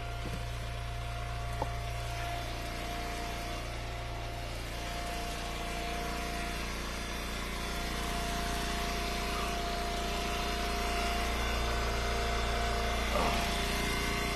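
Engine of an Eastonmade Ultra wood splitter running at a steady speed, a constant low hum with a steady whine over it.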